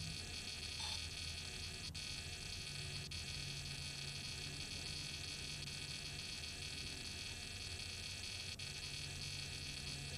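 Faint steady electrical hum and hiss with thin high whines, with a low hum that comes and goes and a few faint clicks, heard through the camera on the parked RC plane with its motor stopped.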